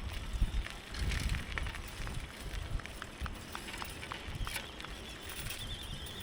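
A bicycle being ridden, with wind buffeting the microphone and the tyres and frame rattling over the ground in an irregular low rumble. Scattered sharp ticks sound throughout, and a thin, wavering high whistle comes in over the last second and a half.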